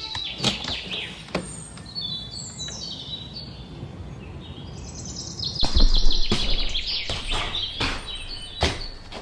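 Small birds chirping and twittering over a faint steady background, broken by several short sharp knocks. The loudest knock comes about six seconds in.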